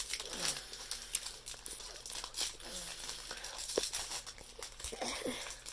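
Crinkling of a foil trading-card booster pack being handled, a run of short, irregular crackles.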